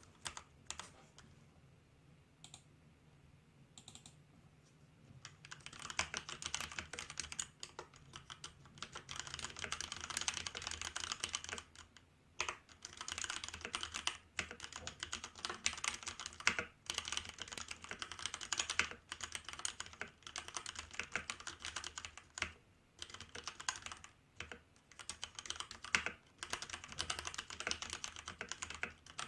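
Typing on a Hansung GO187 mechanical keyboard with Kailh Red linear switches: a few scattered keystrokes, then fast, continuous typing from about five seconds in, broken by a couple of brief pauses.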